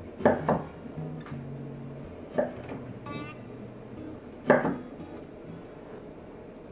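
Chef's knife slicing through a raw carrot and striking a wooden cutting board: a few sharp chops at uneven spacing, two close together at the start and the loudest about four and a half seconds in.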